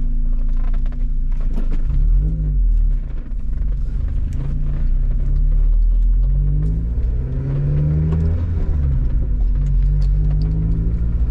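Car engine accelerating through the gears of a manual gearbox: its note rises, drops back at each gear change and rises again, several times, over a steady low rumble.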